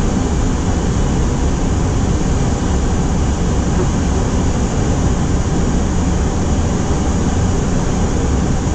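Steady cockpit background noise of an Airbus A330 on final approach: a constant rush of airflow and air conditioning that holds an even level throughout.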